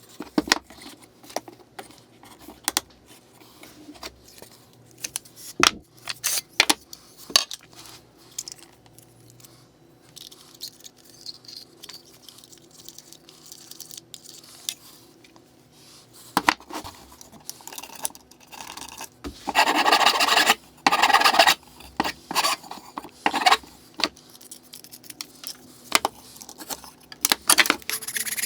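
Hand work at the bench while fitting cork to the clamp's jaws: scattered small clicks and knocks of tools and parts, with rubbing and scraping, loudest in a couple of seconds of scraping about twenty seconds in.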